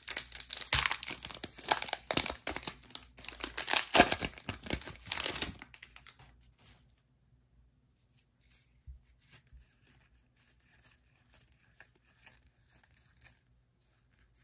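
Foil wrapper of a Score football card pack being torn open and crinkled for about six seconds, then faint soft clicks of the cards being slid and sorted by hand.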